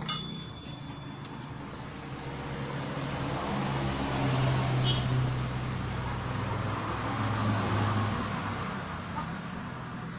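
A sharp metallic clink with a brief ring, then a motor vehicle going past, its engine hum and road noise swelling over a few seconds and fading.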